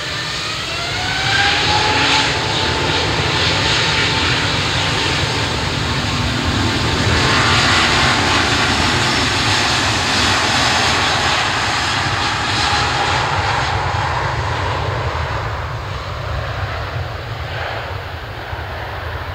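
An Airbus A350-900's Rolls-Royce Trent XWB turbofans spooling up to takeoff thrust. A whine rises in pitch over the first two seconds, then the jet roar grows loud and steady, with a high whine, as the airliner accelerates down the runway. It fades gradually over the last few seconds.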